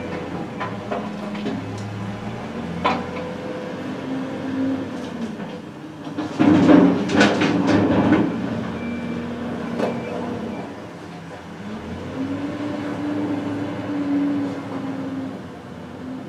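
Excavator's diesel engine running and rising and falling in pitch as the hydraulics work, with occasional metallic clanks. A loud burst of clattering and scraping comes a little past the middle as the bucket works the broken road surface.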